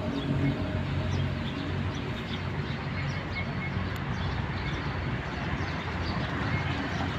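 Outdoor background noise: a steady low rumble like distant traffic, with small birds chirping here and there.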